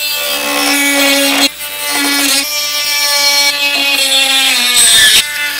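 Handheld rotary tool with a cut-off disc running at high speed, cutting away red plastic on a riding mower's front bumper. It makes a steady high whine that drops out briefly about a second and a half in. Near the end the pitch sags under load and the whine cuts out for a moment before starting again.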